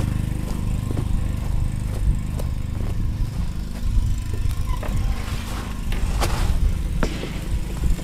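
Portable petrol generator engine running steadily and evenly, without surging, on a newly fitted carburettor. A few short knocks and clicks sound over it, most of them a little past the middle.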